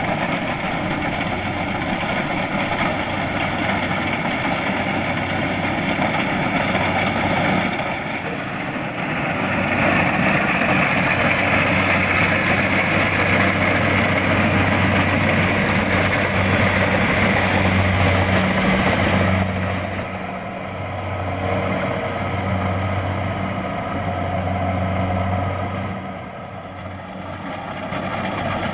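Kubota DC-70 Plus combine harvester's diesel engine running steadily with the machine's mechanical clatter, growing louder and brighter for about ten seconds through the middle, then easing off with two brief dips toward the end.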